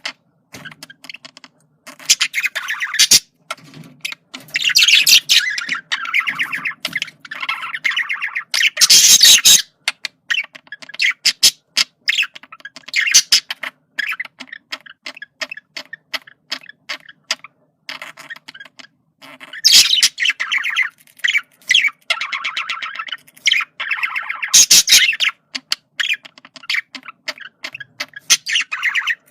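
Male budgerigar chattering: a long run of quick clicks and short chirps, broken every few seconds by louder, harsher squawky bursts.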